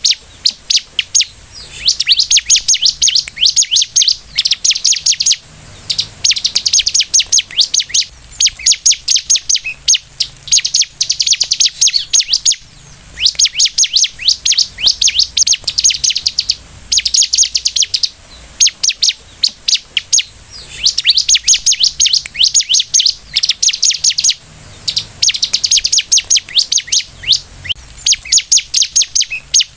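Bar-winged prinia (ciblek) singing loudly: rapid runs of high, sharp chirping notes, each run lasting a few seconds, with short pauses between.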